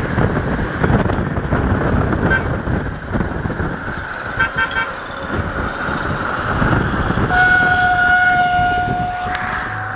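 Romanian CFR class 060-DA diesel-electric locomotive with a Sulzer engine, running as it shunts. It sounds its air horn in one steady blast of about two seconds, starting a little after seven seconds in.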